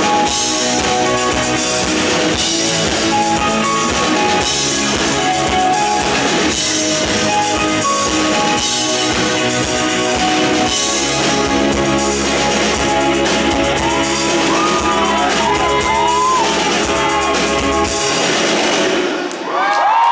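Live rock band with electric guitar, bass and drum kit playing the final bars of a song through a club PA; the bass and drums stop about two seconds before the end and the music dies away. The crowd breaks into cheering and whoops at the very end.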